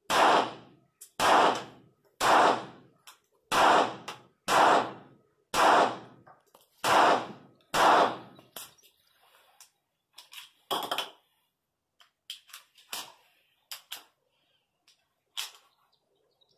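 Eight shots from a .25 ACP pocket pistol, about one a second, each with a short echoing tail. After the eighth shot come several lighter clicks and knocks as the pistol is handled.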